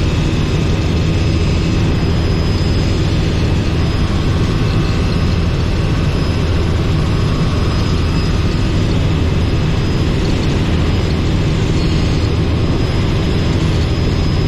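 Robinson R44 helicopter's piston engine and rotors running with a steady, loud drone.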